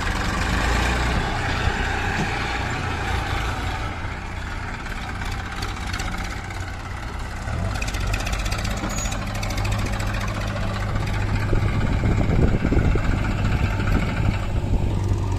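Heavy diesel machinery engine running steadily, a little louder and rougher in the last few seconds.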